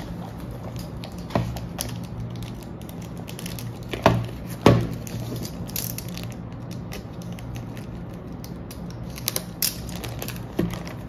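Clear plastic wrapping being slit with a utility knife and handled, with a few sharp clicks and knocks, the loudest two about four and five seconds in.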